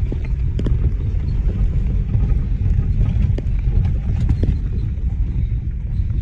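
Inside the cab of a vehicle driving slowly on an unpaved dirt road: steady low engine and tyre rumble, with scattered small knocks and rattles as it goes over bumps.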